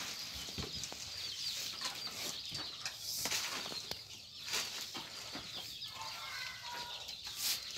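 Sheep eating chopped fermented grass feed from a trough: close, irregular crunching and rustling as they chew and nose through it, with a few short pitched calls near the end.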